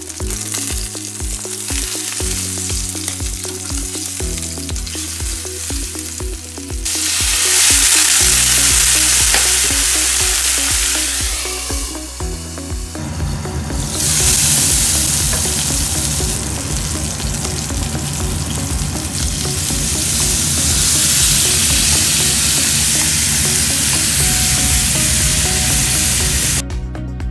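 Pork loin cutlets sizzling in a frying pan, over background music with a steady beat. The sizzle turns louder and hissier about seven seconds in, dips briefly around twelve seconds, and cuts off suddenly near the end.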